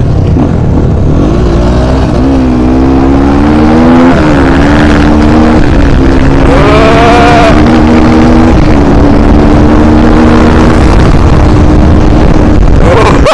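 250 cc single-cylinder dirt bike engine under way, heard loud from the rider's seat. Its pitch rises and falls with the throttle, with a sharper rev about seven seconds in, then it holds a steady note while cruising.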